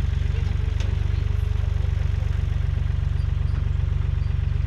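Classic Ford tractor's diesel engine running steadily with a fast, even low beat.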